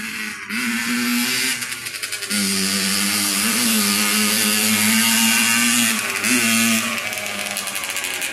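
Dirt bike engine running as the bike rides across a grass yard, holding a fairly steady pitch. It picks up about half a second in and again about two seconds in, and eases off near the end.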